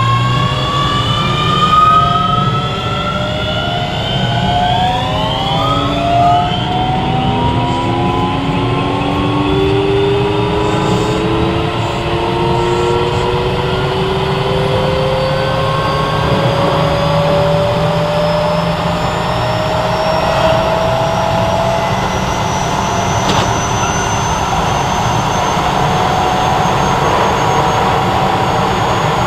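Keio 7000 series electric train accelerating, heard from on board. The traction motors whine in several tones that shift and step over the first few seconds, then climb slowly and steadily with speed over a constant running rumble.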